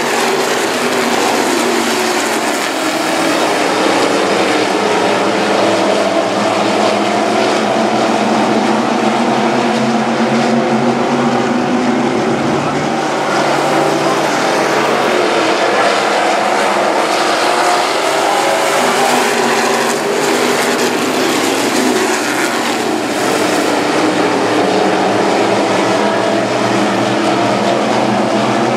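A field of IMCA Stock Cars racing on a dirt oval, their V8 engines running hard, several at once, with overlapping engine notes that shift in pitch as the cars accelerate through the turns and pass.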